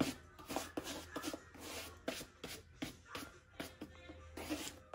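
Bristle shoe brush swept in quick, uneven strokes over a black leather sneaker, dry-brushing off the dust before cleaning.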